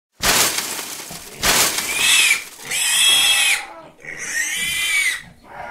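A pig-squeal sound effect: three drawn-out squeals with arching pitch, after a sudden burst of rushing noise at the start.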